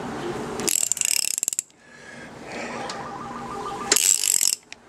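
Socket ratchet wrench clicking in two quick runs on the flywheel nut of a Yamaha XV750 V-twin, once about a second in and again about four seconds in, as the engine is turned over by hand. The engine turns fairly easily: it is not seized.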